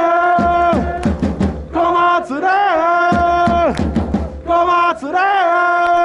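Football supporters chanting a player chant in unison over a drum beat. The sung phrase repeats about every two seconds and ends each time on a long held note that falls away.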